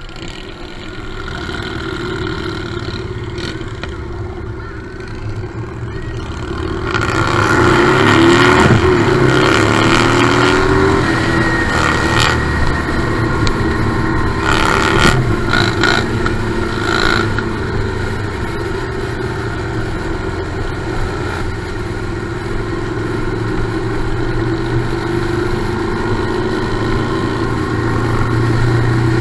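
Motorcycle engines idling at a stop, then revving up and pulling away about seven seconds in, rising in pitch through the gears before settling into a steady cruise with wind rush on the microphone.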